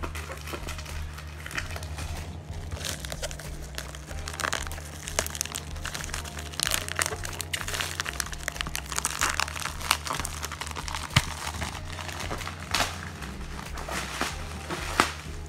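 Packaging being crinkled and crumpled in the hands as a well-wrapped package is unwrapped, in irregular crackles over background music.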